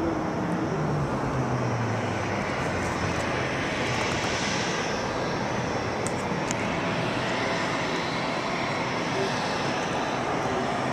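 Jet airliner engines running at a distance across an airport: a steady rushing noise with a faint high whine.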